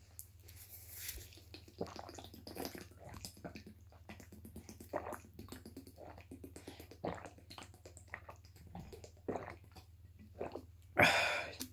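A person gulping water from a plastic bottle: a string of swallows and small wet mouth clicks, with a louder rush of noise lasting about half a second near the end.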